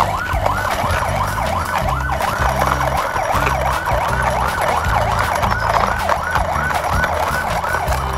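Toy police car's electronic siren, a fast yelp that rises and falls about three to four times a second.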